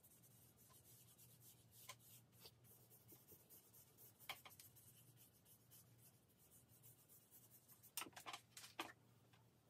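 Blending stump rubbing and scratching over charcoal on drawing paper: faint, scattered strokes, with a quick run of louder ones near the end.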